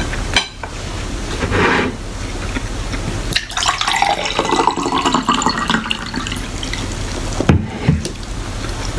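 A drink being poured into a glass for about two and a half seconds, near the middle, over a steady hiss, with a few short knocks of a glass or bottle being handled.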